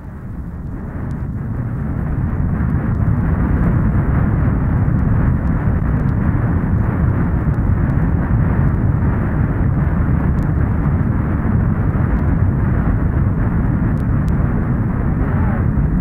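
A low, dense rumbling roar, fading in over the first few seconds and then holding steady, with no clear pitch or beat.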